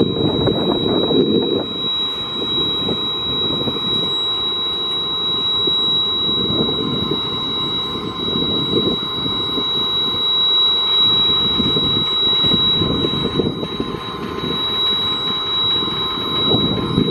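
Tractor engine running while it hydraulically folds the wings of a Kelly diamond harrow upright, with wind gusting on the microphone.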